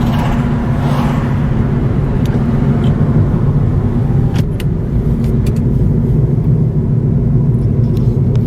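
Car running, heard from inside the cabin: a steady low engine and road hum, with a few short clicks scattered through it.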